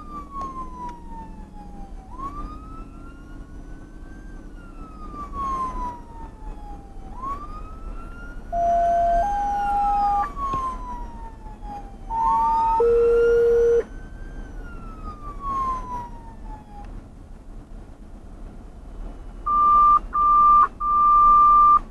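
An electronic siren wailing, its pitch rising and falling slowly about three times before it stops. Over it, the dispatch radio sends two pairs of steady two-tone paging tones and, near the end, three loud alert beeps ahead of a fire call.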